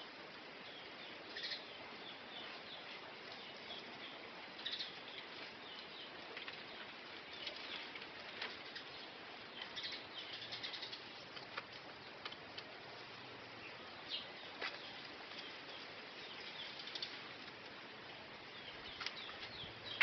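Faint outdoor background: a steady hiss with scattered short, high chirps and ticks.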